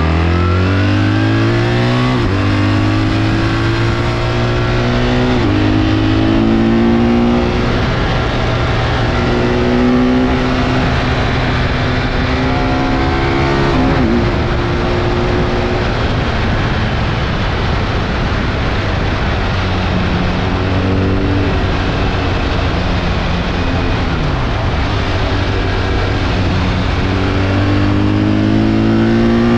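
BMW R1300 GS's boxer twin under hard acceleration, its pitch climbing and dropping in steps at each upshift, with loud wind rush at high speed. Around two-thirds of the way in the engine eases off and the pitch falls, then it climbs again near the end.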